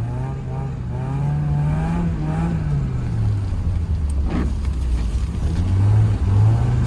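Mazda Miata's four-cylinder engine heard from inside the car while driving: revs climb over the first two seconds, drop off, then climb again near the end.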